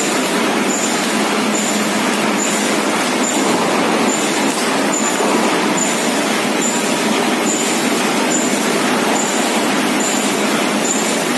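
Roll mesh welding machine running steadily: a loud, continuous mechanical noise with a short high-pitched note repeating a little more than once a second in time with its welding cycle.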